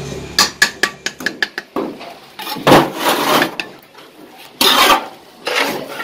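Steel mason's trowel tapping a hollow clay brick to bed it in mortar: a quick run of sharp clicks over the first two seconds. Three longer scrapes of trowel and mortar follow.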